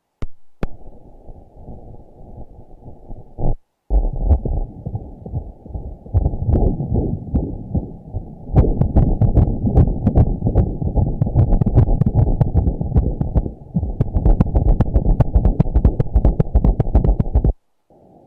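Heartbeat heard through a Doppler ultrasound machine's speaker: rapid, regular pulses. They drop out briefly about four seconds in, grow louder about halfway through, and stop shortly before the end.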